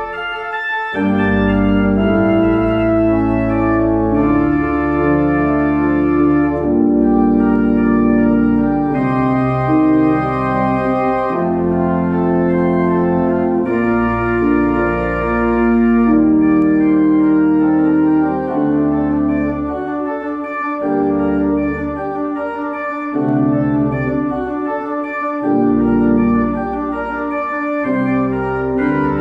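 Organ music: sustained chords held and changing every second or two.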